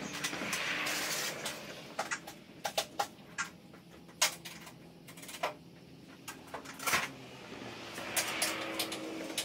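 Steel bolts, washers and nuts clicking and knocking against a steel plate as aerator hitch hardware is fitted. A cordless drill whirs briefly at the start and again near the end.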